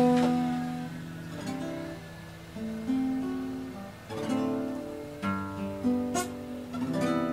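Background music: an acoustic guitar playing plucked and strummed chords, each one ringing and fading before the next.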